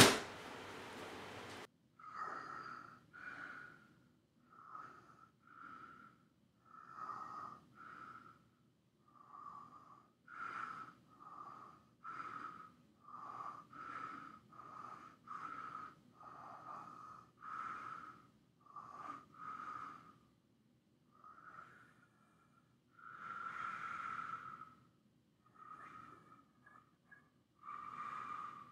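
A person breathing heavily, short breaths about once a second, with silence between them.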